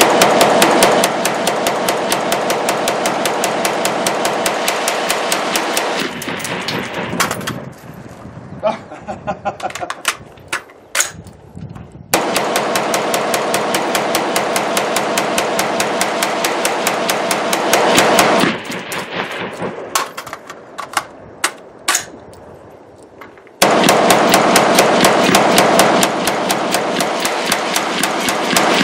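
AR-15 with a 10.5-inch Faxon pencil barrel in 5.56 firing a magazine dump: three strings of rapid shots, each several seconds long. Between the strings are breaks of about five or six seconds with only a few single cracks.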